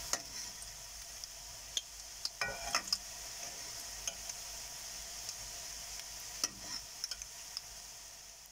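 Badusha dough balls deep-frying in hot oil in a steel kadai, a steady sizzle, with a few light clinks and scrapes of a metal spoon against the pan as the balls are turned. The sizzle fades near the end.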